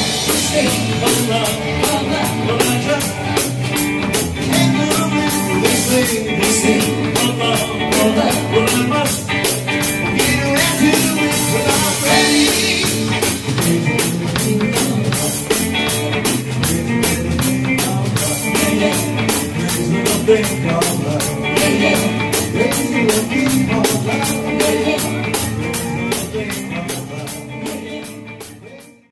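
Live rock and blues trio playing: electric guitar, bass and drum kit with steady cymbal strokes, and a man singing. The music fades out near the end.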